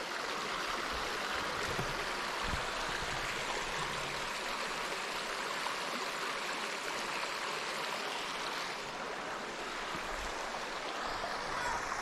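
Mountain creek water running steadily over rock slabs and through shallow channels.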